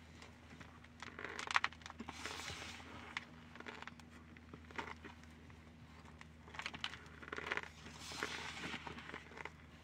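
Cornstarch powder crunching as it is chewed and squeezed by hand, in clusters of short crackles about a second in and again from about six and a half seconds. A low steady hum runs underneath.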